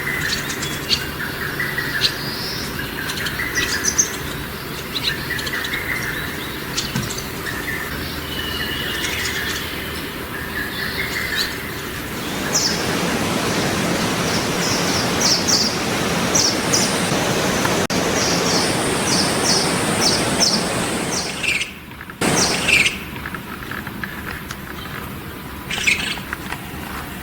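Wild songbirds calling with many short, high chirps. About twelve seconds in, a steady rushing noise comes in under them and cuts off abruptly about ten seconds later, after which the chirping continues over quieter background.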